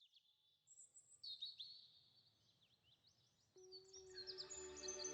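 Faint birdsong: quick high chirps and short sweeping whistles. About three and a half seconds in, soft sustained musical notes fade in beneath the birds and slowly grow louder.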